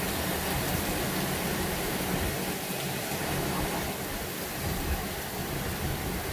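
Rain falling steadily during a thunderstorm, an even hiss with no breaks.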